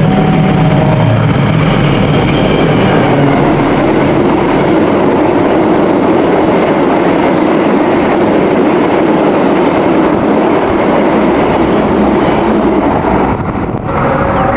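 A train passing close by the level crossing: a loud, steady rumble of wheels on rail that falls away about 13 seconds in. The crossing's warning signal sounds a steady pattern of alternating tones at the start and again near the end.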